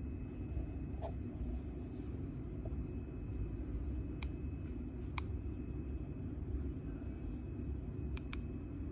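Handheld Geiger counter clicking: about five sharp, single clicks at uneven intervals, each one a detected radiation count, at a low dose rate of a few tenths of a microsievert per hour. A steady low hum runs underneath.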